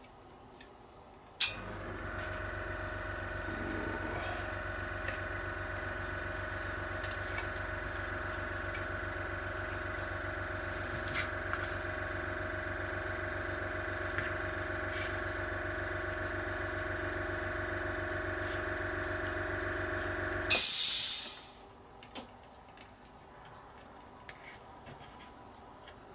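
Airbrush compressor clicking on and running with a steady hum for about nineteen seconds, then cutting out with a short, loud hiss of released air. Faint small ticks of tweezers and tape come over it.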